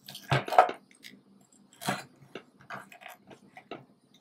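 Kitchen knife cutting through a cooked pork rib on a wooden cutting board, with metal tongs holding the meat: a series of short knocks and scrapes, the loudest about half a second in.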